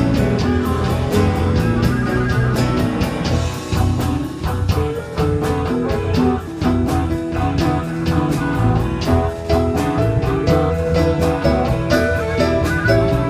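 Live band playing a slow blues in E, led by electric guitar over bass and drums with a steady cymbal beat.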